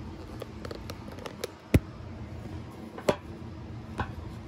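Plastic wiring connectors being handled and unplugged: a few scattered clicks and knocks. The loudest is a sharp click about two seconds in, and there are fainter ticks before it and two more clicks later, over a steady low hum.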